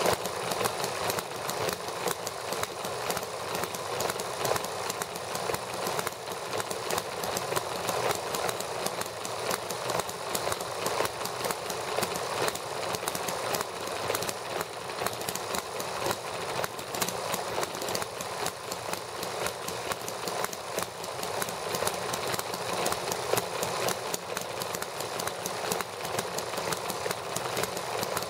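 Two miniature gasoline model engines, one vertical and one horizontal, running together at a steady fast idle: a rapid, even patter of firing strokes and clattering valve gear.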